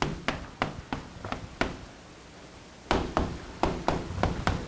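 Chalk tapping and knocking against a blackboard while a word is written: a quick run of sharp taps, a pause of about a second, then another run of taps.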